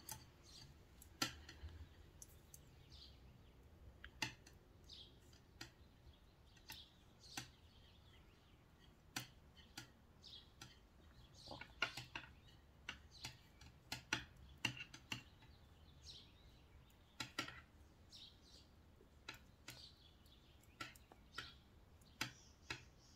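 Faint, irregular light clicks and brief squeaky scrapes of 3 mm double-pointed knitting needles as stitches are picked up one by one along the edge of a sock's heel flap.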